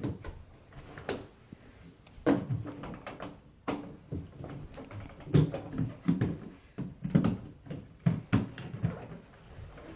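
Large hard-shell ABS suitcase being handled: a string of knocks, clunks and clicks as it is tipped over, laid flat and unlatched, the loudest knocks in the second half.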